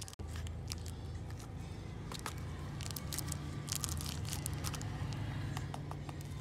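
Thin plastic bag crinkling and crackling in fits as chili sauce is squeezed out of it, over a steady low hum.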